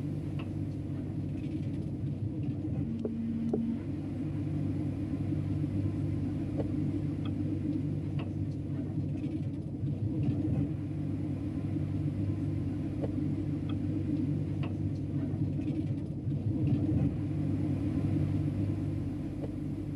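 Steady low machinery rumble and hum, with a few faint ticks.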